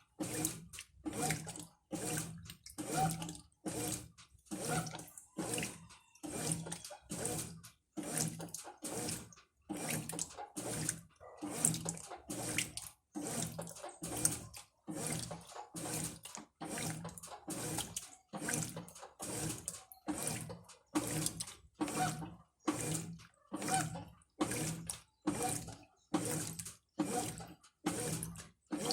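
Top-loading Brastemp Ative 11 kg washing machine agitating a load in water: the 8-blade agitator swishes back and forth in a steady rhythm, a little under two strokes a second, water sloshing with each stroke. The agitation is somewhat weak, but it still pulls the load around.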